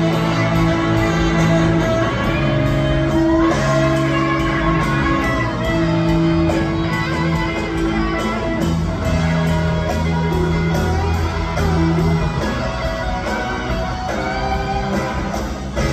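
Rock band playing live: an electric guitar lead with gliding, bent notes over held low notes.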